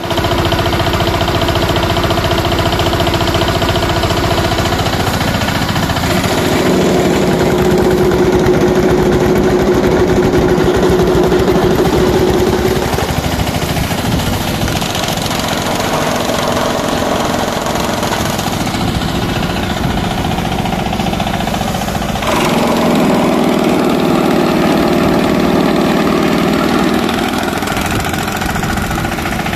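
DK Champion 12 HP mini tractor's diesel engine running steadily, driving a PTO-powered chaff cutter. The drone grows louder twice, for several seconds each time, as the cutter chops straw under load.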